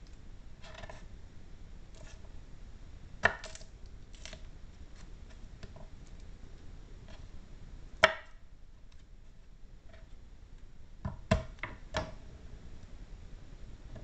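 Kitchen knife cutting garlic cloves on a cutting board: irregular, separate knocks of the blade against the board. The sharpest come about three seconds in, about eight seconds in, and in a quick cluster near the end.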